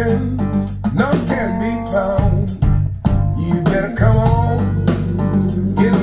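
Acoustic-guitar music with a singing voice and a steady bass, played back over a pair of wireless hi-fi speakers.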